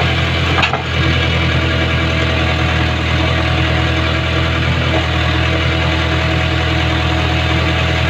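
JCB backhoe loader's diesel engine running steadily while the backhoe arm digs and lifts wet sand out of a stream bed, heard close from the operator's cab. A brief knock sounds about a second in.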